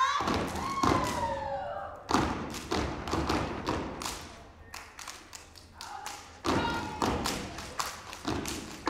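A step team stomping their feet in unison on a stage floor, a rhythmic series of sharp thumps that thins out in the middle and comes back strongly near the end. A voice calls out with a falling pitch early in the routine.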